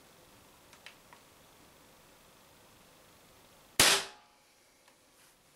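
Umarex HDS68 CO2 pistol fired once about four seconds in: a single sharp, loud pop with a short ringing decay. A couple of faint clicks come before it.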